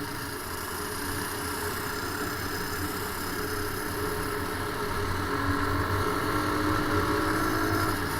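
Mini bike's small engine running steadily, growing gradually louder.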